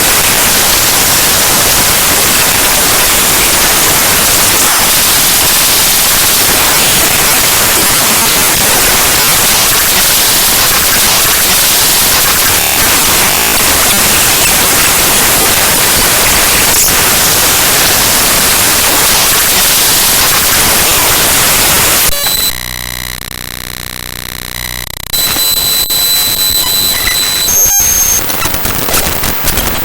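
Raw binary data of the Windows explorer.exe program file played back as audio: loud, harsh static-like noise. About two thirds of the way through it drops into a quieter, buzzy stretch with a repeating pattern, then comes back with steady high whistling tones and sharp clicks.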